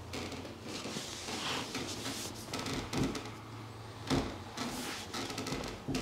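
Hands rubbing and pressing on a person's back through a shirt: steady fabric rustling, with two brief thumps about three and four seconds in.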